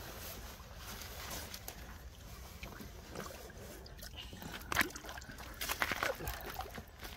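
Lake water sloshing and dripping as a wet mesh sling is lifted out of a floating carp cradle and the cradle is tipped into the water. A few sharper splashes come about five to six seconds in.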